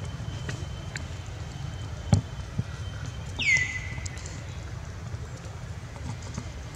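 Outdoor ambience: a steady low rumble, a sharp tap about two seconds in, and a short high call that slides down in pitch about halfway through.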